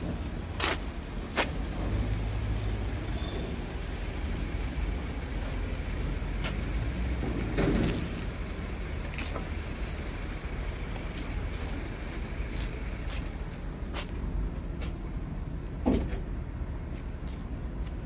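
Steady low rumble of an idling vehicle engine, with scattered sharp clicks and two louder knocks about halfway through and near the end.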